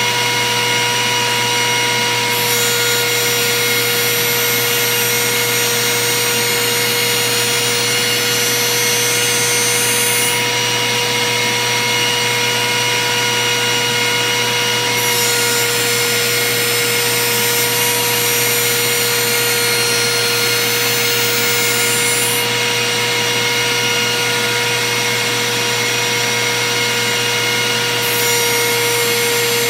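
Table-mounted router running steadily alongside a dust-collection vacuum, a constant loud whine with a hiss and no break or change in speed.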